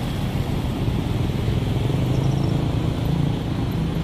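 Road traffic: a steady low rumble of passing vehicles, with an engine hum that swells about two seconds in.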